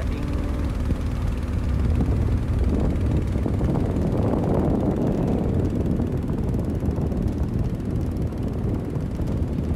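Boat engine running steadily while underway, with wind noise on the microphone.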